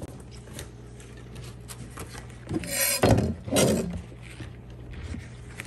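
A bar of pink Zote laundry soap being opened and handled: a short cluster of rustles and knocks about halfway through, over a steady low hum.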